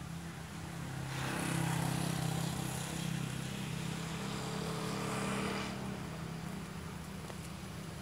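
Horn of an approaching CC201 diesel locomotive, sounded from a distance in one long blast of about five seconds that starts and stops sharply. The horn is unusual for a CC201 and sounds like a BB303 locomotive's. A steady low rumble runs underneath.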